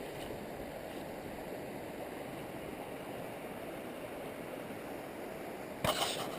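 Stream water running with a steady rush. Near the end there is a brief louder rustle.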